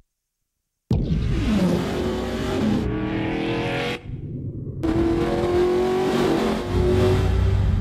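Audi TT sports car engine accelerating through the gears, its pitch climbing and dropping back at each shift. It starts after about a second of silence.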